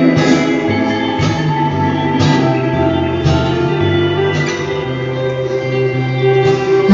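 Live indie-folk band playing an instrumental passage without vocals: guitar chords struck about once a second over held low notes.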